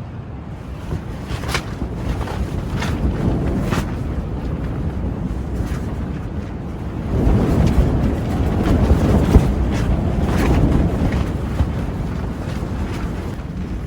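Strong, gusty wind rushing and buffeting the microphone, swelling into a louder gust about halfway through, with a few brief sharp flaps.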